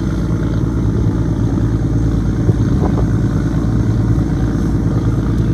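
River car ferry's engine running with a steady low drone.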